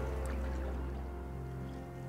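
Soft background music with sustained, held notes over a low drone.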